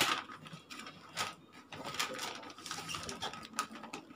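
Wrapping paper being pulled and torn off a large flat gift box by a small child's hands, in irregular crinkly rustles, the loudest right at the start.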